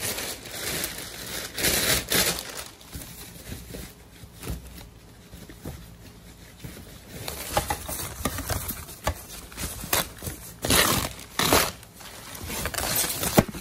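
Plastic wrapping crinkling and rustling as it is pulled off a motorcycle body panel by hand. It comes in irregular bursts, with a quieter stretch in the middle and the loudest rustles near the end.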